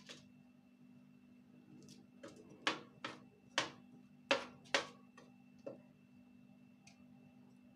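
Potato pieces being pushed and set down on a foil-lined metal baking tray: about seven light taps and clicks, bunched between two and six seconds in, over a faint steady hum.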